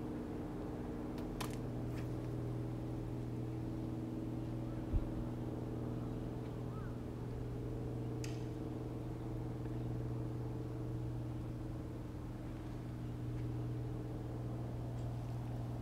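A steady low engine drone, holding one pitch, with a few faint clicks and a single short thump about five seconds in.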